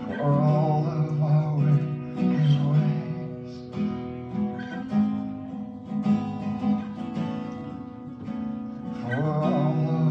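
Acoustic guitar strummed and picked as song accompaniment, with a voice briefly singing or humming along near the start and again near the end.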